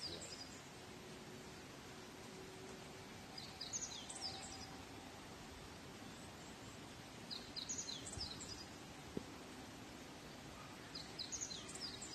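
A small bird singing faintly, repeating the same short high phrase three times about every four seconds, over a faint outdoor background hiss.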